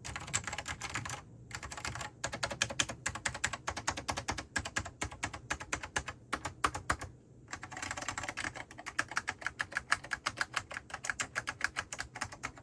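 Fast typing on an Apple Extended Keyboard with Alps SKCM Orange tactile switches, freshly lubricated so the spring noise is gone: rapid runs of keystroke clicks with two brief pauses.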